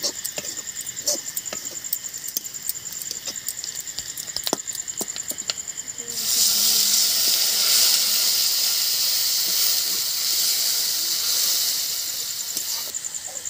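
A stirring stick clicks and scrapes against a kadai of frying fish masala. About six seconds in, water poured into the hot oil sets off a sudden loud hiss and sizzle that lasts several seconds and slowly dies down.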